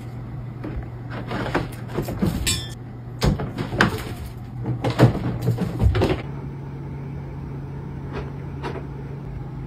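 Automatic self-cleaning litter box running with a steady low motor hum, with a series of knocks and thumps in the first six seconds as a cat scrambles out of its drum.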